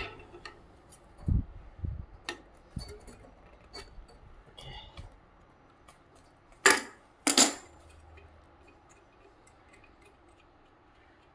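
Scattered light clicks and metallic taps of parts and tools being handled while an air-conditioner outdoor unit is taken apart, with two louder clattering knocks in quick succession a little past halfway.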